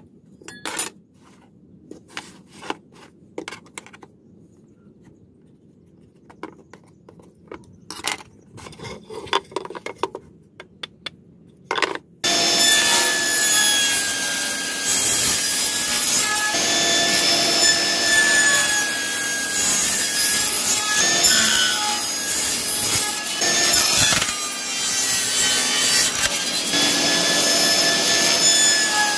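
Faint taps and scrapes of marking a board against a speed square, then, from about twelve seconds in, a table saw running loudly and steadily with a whine while a workpiece is pushed through on a crosscut sled.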